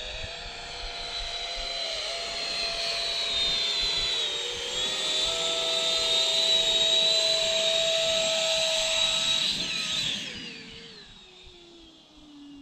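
Twin 120 mm electric ducted fans of an RC F-35B model jet whining at high power, growing louder as the model comes in low. About ten seconds in, the whine falls in pitch and fades as the fans spool down on landing.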